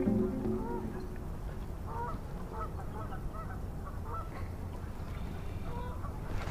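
Geese honking, many short calls that come and overlap from a second or so in, over a steady low rumble of wind on the microphone.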